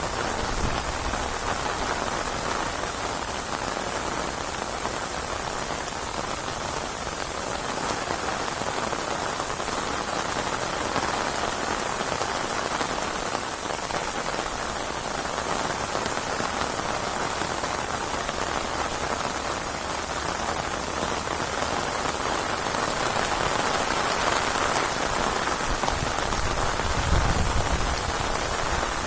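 Steady rainstorm: rain falling on surfaces as a dense, even hiss that slowly swells and eases, with a short low rumble near the end.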